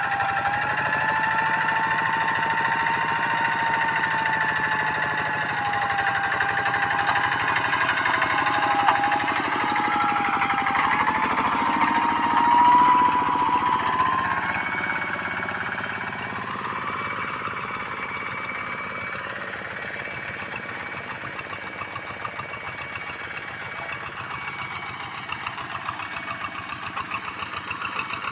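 Two-wheel hand tractor's single-cylinder diesel engine running under load while ploughing, with a wavering whine over the engine note that climbs about twelve seconds in. In the second half the engine is quieter and its regular firing beat stands out.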